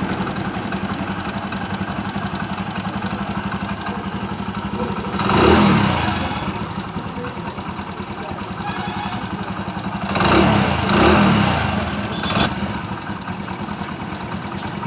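Hero Splendor Plus motorcycle's single-cylinder four-stroke engine idling steadily, given a short rev about five seconds in and two more around ten to eleven seconds in. The engine is freshly rebuilt and runs smoothly, without the rattle it had before.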